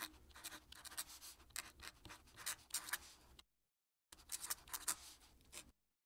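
Fountain pen nib scratching across paper in quick, irregular strokes while writing a cursive signature. The writing breaks off into dead silence about three and a half seconds in, then resumes for a second and a half.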